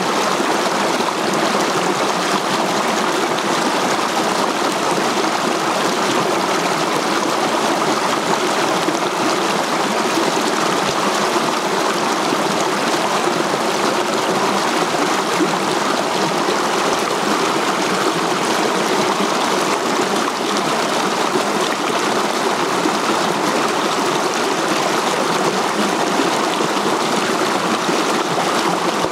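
Shallow mountain river rushing and splashing over boulders in small cascades, a steady, unchanging water noise.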